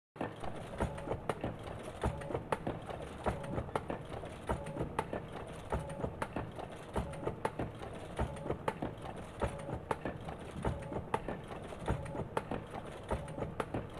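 Honeycomb coal briquette machine and its roller conveyor running: a steady mechanical hum with repeated sharp knocks and clanks, about one to two a second.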